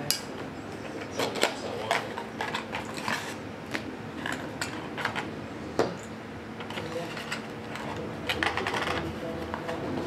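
Irregular clinks, taps and rattles of metal bike parts and tools being handled, with a denser cluster about a second in and another near the end.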